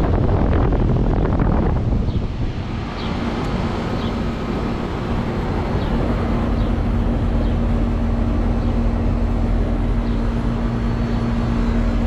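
Lennox Elite EL16XC1 central air-conditioner condensing unit running: the condenser fan's steady rush of air, with a steady hum joining about three seconds in and growing stronger in the second half.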